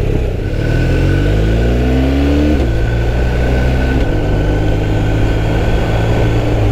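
BMW R1250RS's 1254 cc boxer twin pulling away under acceleration: the engine note rises, drops at an upshift about two and a half seconds in, rises again, and settles after another shift about four seconds in.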